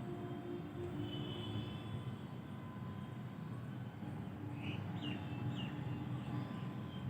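Outdoor morning ambience: a steady low rumble with a faint hum running under it, and a few short bird chirps, three or four, about two-thirds of the way through.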